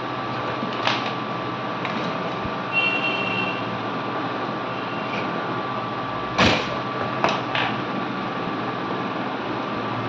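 Steady blowing hiss under a few sharp clicks and knocks of hand tools on a plastic-cased circuit board and the workbench; the loudest knock comes about six and a half seconds in.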